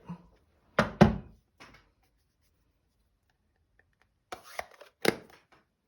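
Knocks and taps of rubber-stamping tools on a craft table: a loud double knock about a second in, then silence, then a few light clicks and another sharp knock about five seconds in.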